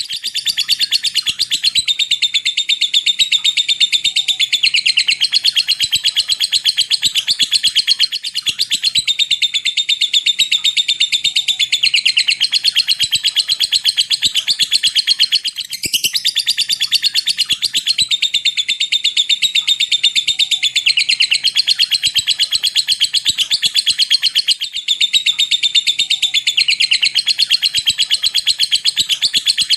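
Lovebird singing its long 'ngekek' trill: a very fast, unbroken chatter of ticking notes, pausing only briefly every several seconds before starting again.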